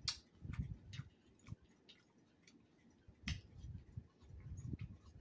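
Faint scattered clicks and soft low bumps from hands picking through a plate of salad. The sharpest clicks come right at the start and again about three seconds in.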